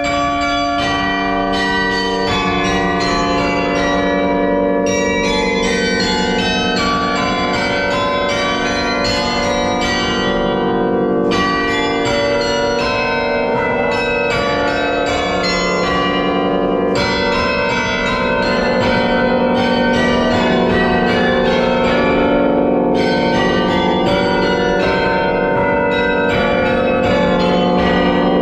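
Carillon of bronze bells hung in a tower frame, struck in quick succession at many different pitches so that the notes ring on and overlap into a continuous peal.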